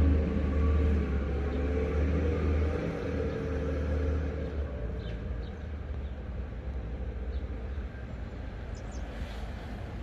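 Low engine rumble of a road vehicle with a steady hum, fading about halfway through and leaving a quieter outdoor background with a few faint high ticks.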